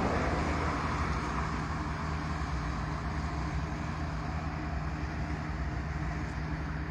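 Steady low rumble of distant vehicle noise, slowly fading.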